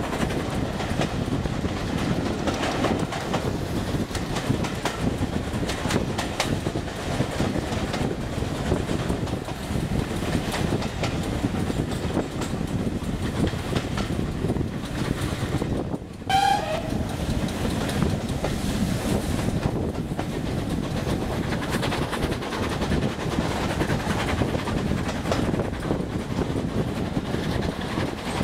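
Steam-hauled heritage train heard from an open carriage window: the steady rumble and clatter of the coaches' wheels on the track. About two-thirds of the way through, just after a momentary drop in sound, comes a short, slightly falling whistle toot.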